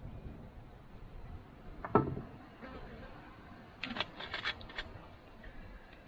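Bottles and a plastic tumbler handled while mixing a drink at a kitchen sink. There is a single hard knock about two seconds in, then a quick run of sharp clicks around four seconds in as a plastic bottle cap is twisted.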